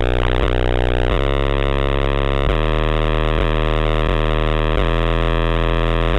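Deep bass played very loud through two Sony Xplod subwoofers, a run of low held notes that change every second or so, heavily distorted by the overloaded microphone.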